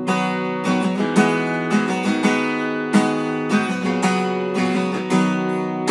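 Background music: an acoustic guitar strummed in a steady rhythm, close to two strums a second.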